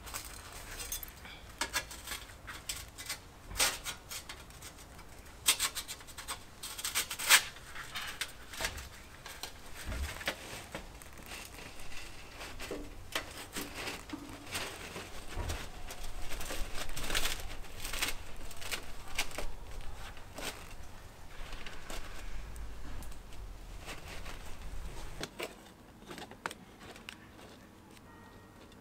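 Thin scrap-metal sheets being set into fine gravel by gloved hands as concrete form boards: gravel crunching and scraping, with scattered sharp clicks and clinks of metal, the loudest about seven seconds in.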